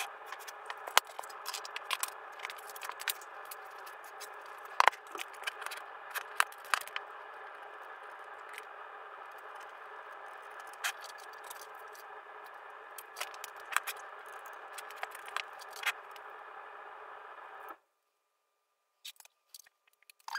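Clicks, rattles and scrapes of speaker wire being handled and fastened to the rear speaker terminals of an opened stereo amplifier, over a steady hiss that cuts off about three seconds before the end, after which a few more clicks sound.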